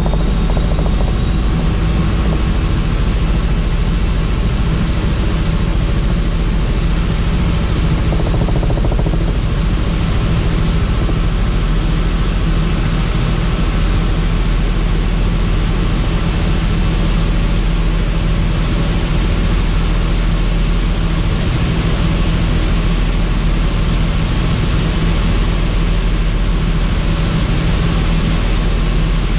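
Helicopter in flight, its rotor and turbine engine running steadily and loudly, with a thin high-pitched tone above the low hum.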